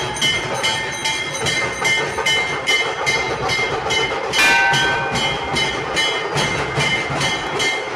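A dhol band playing: several large dhol drums beaten together in a steady, quick beat, about three strokes a second, with ringing metal over the beat. There is one louder, brighter crash about halfway through.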